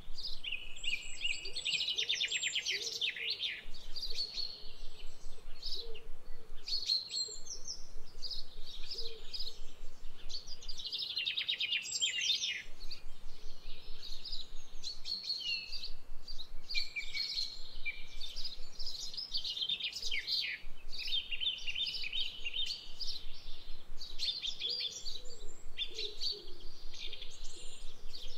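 Birds singing and chirping in a dense, continuous chorus of overlapping calls and quick trills.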